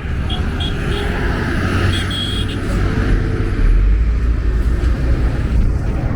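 Road traffic and engines: a steady low rumble of motor vehicles passing close by, swelling in the middle, with a few short high beeps in the first half.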